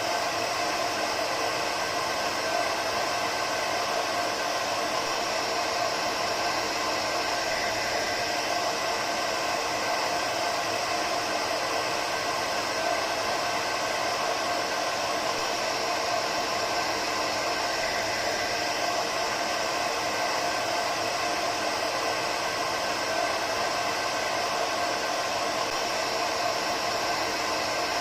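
Hair dryer running steadily, an even whooshing air noise with a constant motor hum and no change in speed.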